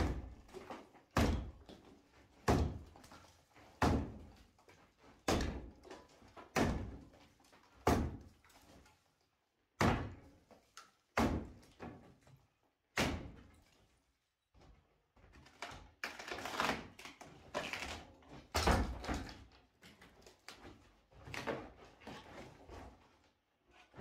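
Axe blows striking the timber door frame of a lath-and-plaster stud wall as it is chopped out, a sharp knock about every 1.3 seconds at first. After a short pause the blows come less evenly and each hit sounds longer.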